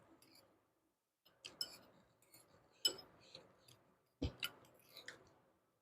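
Close eating sounds: chewing mouthfuls of stir-fried papaya flowers, with short clicks and crackles coming in several separate clusters.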